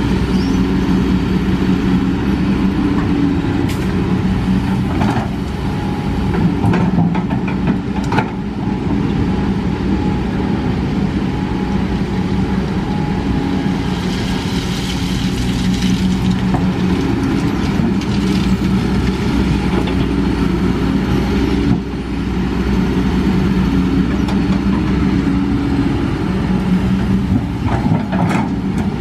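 Kobelco SK200 hydraulic excavator's diesel engine running steadily as the machine digs and lifts its bucket, with a few short knocks.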